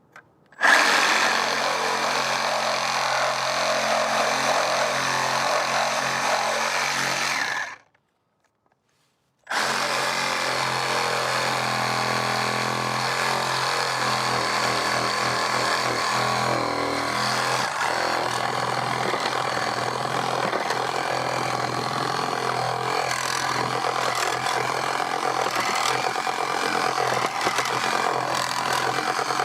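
Power saw cutting through wood, running steadily with a constant motor pitch. It stops dead after about seven seconds, is silent for about two seconds, then runs and cuts again.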